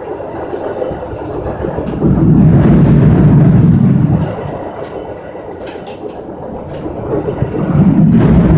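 Metra bilevel commuter car running at speed, its wheels rumbling and clattering over the rails, heard from the vestibule. The low rumble swells loudly about two seconds in, eases, and swells again near the end, with sharp rattles and clicks in between.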